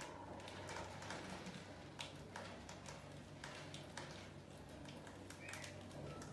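Faint, scattered light taps and scratches of a rat moving about on a tiled floor, over a steady low hum, with a short high chirp about five and a half seconds in.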